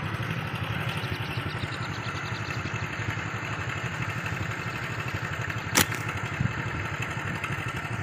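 An engine running steadily as a low drone, with one sharp snap about six seconds in as a slingshot's bands are released to loose a shot.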